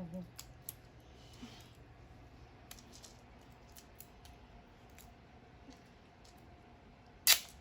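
Faint, scattered clicks and light handling of small plastic toy pieces and packaging, with one short, sharp, loud noise near the end.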